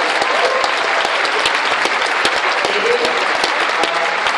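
Large theatre audience applauding, dense steady clapping with a few voices calling out over it.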